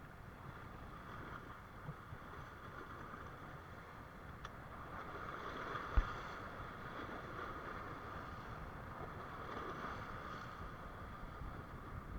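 Steady wind and water noise on a small boat at sea, with a single low knock about halfway through.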